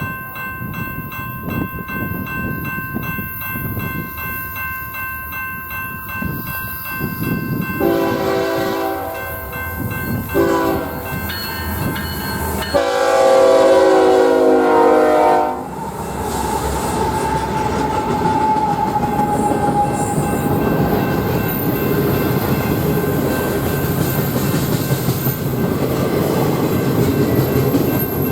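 Freight train's multi-note horn sounding the grade-crossing pattern: a long blast, a short one and a final long blast, before the train passes with a steady rumble and wheels clicking over the rail joints.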